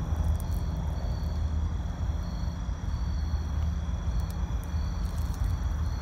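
Wind buffeting the microphone as an uneven low rumble, with a faint, steady chorus of insects trilling high above it.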